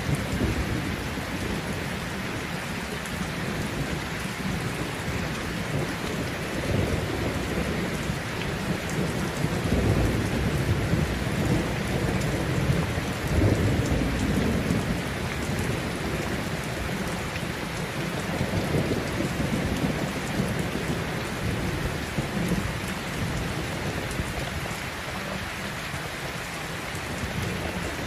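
Steady heavy rain, with low rolls of thunder rumbling under it several times, loudest near the middle.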